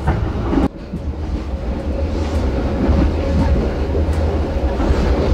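Passenger train coach running, heard from inside the carriage: a steady low rumble with a faint steady hum above it.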